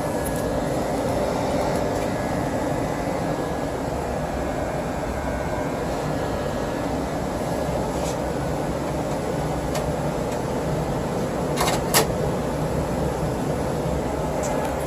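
Newly installed 80% gas furnace running: a steady rush of air from the blower, with a low rumble under it. Two sharp clicks come close together about twelve seconds in.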